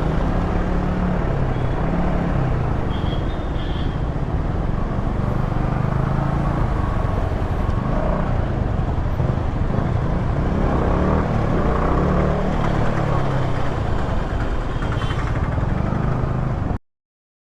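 Yamaha R15 V3's single-cylinder engine running through its stock exhaust while riding, its note rising and falling with the throttle over a steady rushing road and wind noise. The sound cuts off suddenly near the end.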